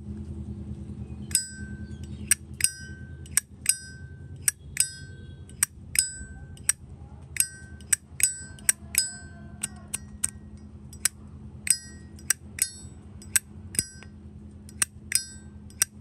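Zippo lighter lid flicked open and snapped shut again and again: about two dozen sharp metallic clicks, many of them ending in a short, bright ringing 'ting'.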